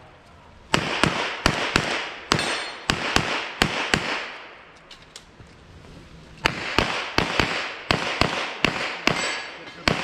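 Rapid pistol fire: a fast string of about ten shots, a pause of about two and a half seconds, then another fast string of about ten shots.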